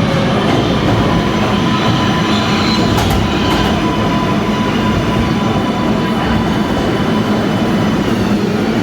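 R188 subway train running steadily, a dense rumble with a faint steady whine, and a sharp click about three seconds in.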